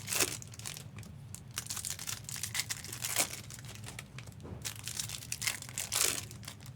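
Trading-card pack wrappers crinkling and being torn open in a run of crackling rustles, the loudest just after the start, about three seconds in and about six seconds in.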